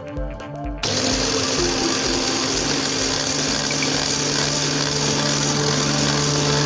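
Food processor motor switched on about a second in and running steadily, blending the marinade ingredients, with a constant hum under the whirring noise. Background music with a beat plays underneath.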